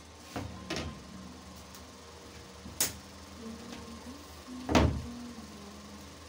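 A long tailor's ruler handled and set down on a cloth-covered cutting table: a few light clacks, then a louder knock about five seconds in as it is laid flat on the fabric.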